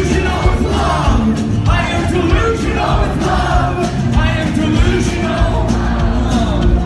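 Live rock band playing loudly with drums and sung vocals.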